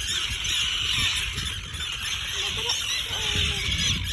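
A colony of terns calling: many harsh, high cries overlapping continuously from adults alarmed at an intruder near their chicks and eggs.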